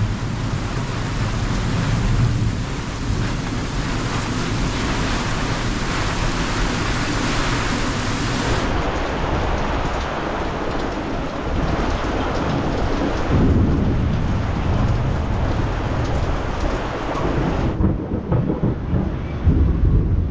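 Fireworks display: a dense, continuous rumble of booming and crackling bursts, changing abruptly about nine seconds in and again near the end.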